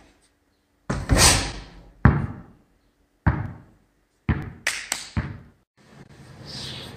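A basketball strikes the hoop about a second in, then bounces on the gym floor several times, the bounces coming closer together as it settles.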